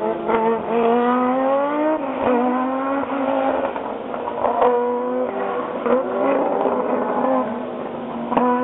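Audi Sport quattro S1 rally car's turbocharged five-cylinder engine revving hard through the gears, its pitch climbing and then dropping back at each shift, with a few sharp cracks now and then.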